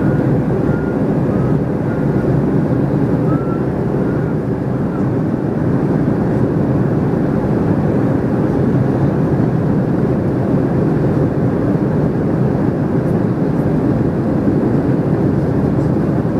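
Steady cabin noise of a Boeing 737-300 climbing after takeoff: its CFM56-3 turbofan engines and the rush of air past the fuselage, an even low drone with a faint steady hum.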